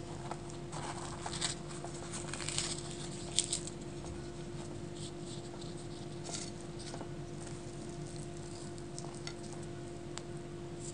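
Fingers pressing and tearing crisp luchi (puffed deep-fried bread), with crackling and crinkling clustered in the first few seconds, then sparse small ticks of handling. A steady hum runs underneath.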